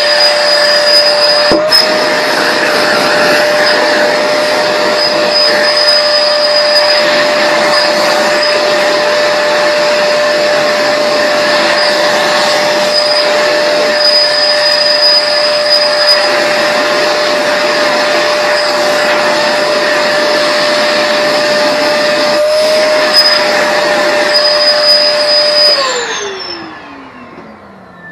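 Shop vac running steadily while vacuuming up sawdust, then switched off near the end, its motor winding down with a falling whine.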